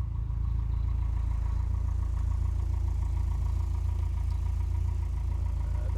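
1988 Lotus Esprit's turbocharged 16-valve twin-cam four-cylinder engine idling steadily, with a faint steady high tone above the low engine note.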